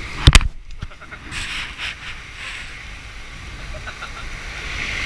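Two sharp knocks right at the microphone, a tenth of a second apart near the start, as the action camera is handled, followed by a few faint taps and rustles.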